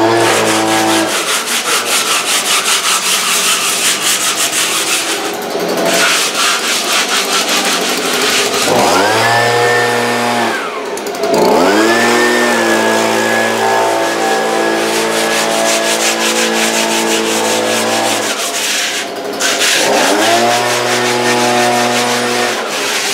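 Handheld two-stroke leaf blower running over a concrete patio, its engine throttled up, held at full speed and let back down about three times, the longest run lasting some seven seconds.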